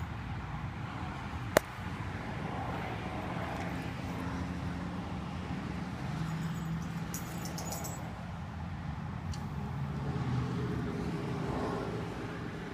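Road traffic: a steady low rumble of cars with slowly shifting engine tones. One sharp click comes about a second and a half in, and faint high ticks come around the middle.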